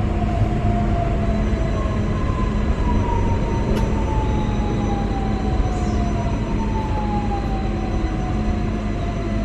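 Steady hum and rush inside a Newag Impuls 2 electric multiple unit standing at a station, with a thin steady high tone. Two long whines slowly fall in pitch across it, and there is a single sharp click just before the middle.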